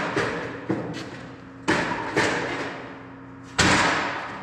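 About five heavy metal thumps and slams at uneven spacing, each ringing out for about a second: the rear radiator cover and rear door of a Bobcat S570 skid steer being closed and seated.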